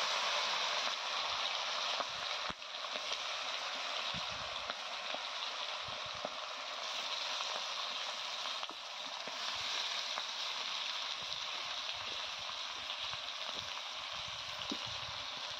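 Marinated chicken and onions sizzling in hot oil in a kadai, a steady frying hiss with a few faint clicks.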